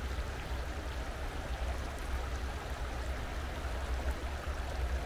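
Clear trout stream running steadily: a constant rush of water with a low rumble underneath.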